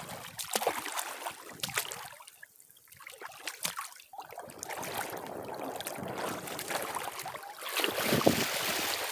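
Wind rushing over the microphone with shallow lake water lapping and splashing, and a few small clicks and knocks. The noise dips for a moment about two seconds in, then swells again near the end.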